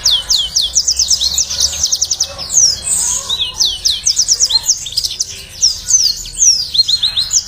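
Yellow-fronted canary (Mozambique canary) singing a long, fast song: rapid runs of high, down-slurred notes and trills.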